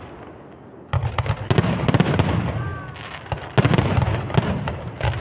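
Fireworks display going off: after a brief lull, a dense run of rapid crackling pops and bangs starts about a second in, with another surge about three and a half seconds in.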